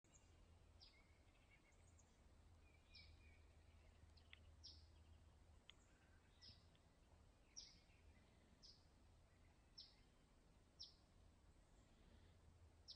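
Faint bird calls: a single high note sliding downward, repeated every second or two, over a low steady rumble.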